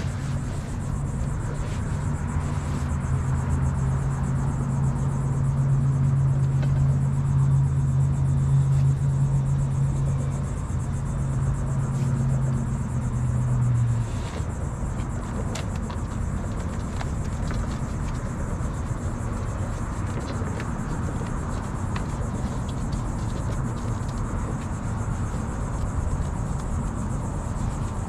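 A vehicle engine running with a steady low hum, which stops abruptly about halfway through, leaving a steady background of outdoor noise.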